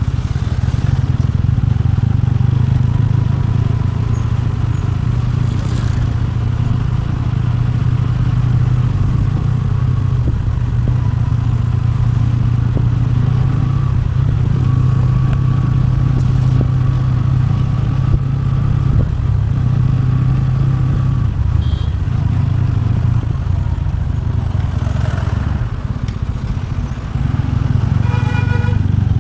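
TVS Ronin motorcycle's single-cylinder engine running steadily while riding, with small rises and falls in pitch. A short pitched tone sounds near the end.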